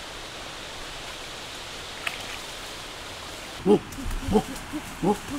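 Steady outdoor hiss, then about two-thirds of the way in domestic geese start honking: a quick run of short, pitched honks, the first the loudest.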